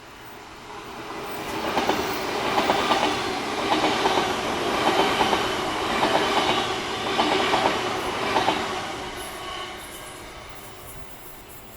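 A train passing by: the rumble builds up, its wheels clack in pairs over the rail joints about once a second, and then it fades away.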